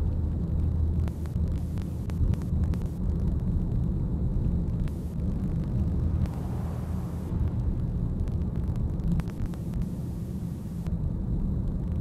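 Steady low rumble of a car on the move, with engine and road noise heard from inside the cabin.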